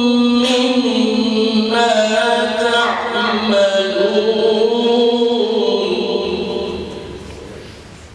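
A man's voice reciting the Quran in melodic tajwid style through a microphone, drawing out long held notes that bend slowly in pitch. The phrase fades and ends about a second before the close.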